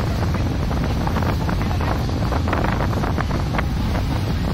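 A Thames Clipper river boat under way: a steady low engine rumble, with wind buffeting the microphone and rushing water, and frequent short crackles through it.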